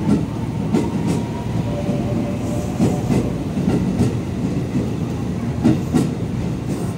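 JR 281 series Haruka limited express train pulling out past on the platform: a steady low rumble, with the wheels clicking over rail joints in pairs a few times as the bogies pass.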